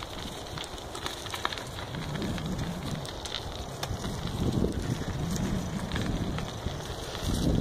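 Wind rushing over the microphone while a bicycle rattles along a rough dirt trail, with scattered clicks and knocks. A low rumble builds about two seconds in and is strongest near the middle and again near the end.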